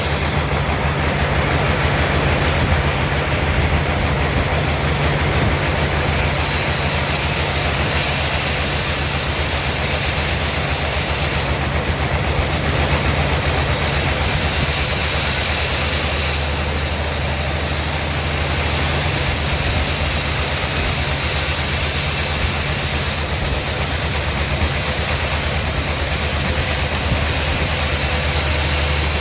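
Sawmill machinery running steadily, a loud low hum with a constant hiss over it that swells and eases a few times.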